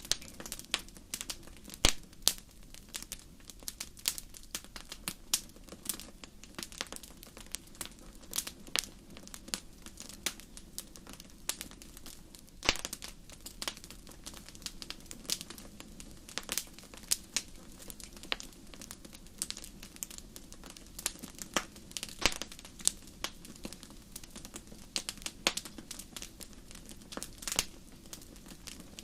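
Wood fire crackling in a fireplace: irregular sharp pops and snaps, several a second, some louder ones standing out, over a steady low rush of flame.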